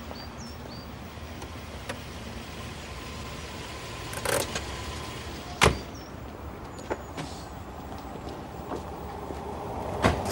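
A car's engine running steadily, with birds chirping faintly and a few sharp knocks, the loudest near the middle and again near the end.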